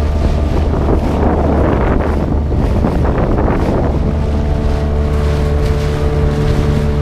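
A small boat's engine running steadily as the boat moves across open water, with wind buffeting the microphone and the rush of water growing louder for a few seconds near the start.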